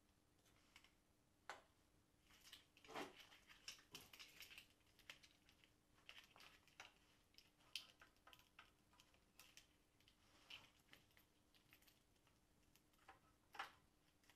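Near silence with faint, irregular clicks and light taps of small parts being handled, the louder ones about three seconds in and near the end.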